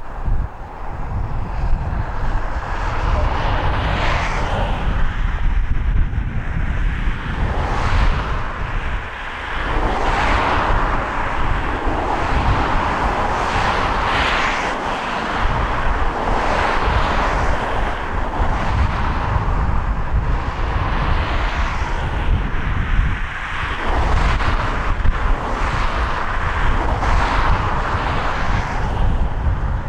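Jet noise from an Embraer E190's two turbofan engines as the airliner comes in to land: a continuous rushing sound with a heavy low rumble, swelling and easing every few seconds.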